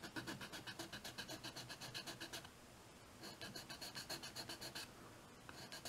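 Small hand file rasping back and forth in quick, rhythmic strokes on the plastic body of a model pickup, cutting down a molded-on side trim strip. The filing comes in two runs with a short pause about two and a half seconds in, then stops near five seconds.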